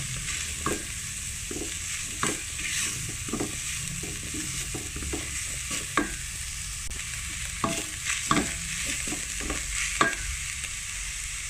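Chopped vegetables and shredded chicken sizzling in a stainless steel pot while being stirred with a spatula, with irregular scrapes and knocks of the spatula against the pot's side and base, the sharpest about six and ten seconds in.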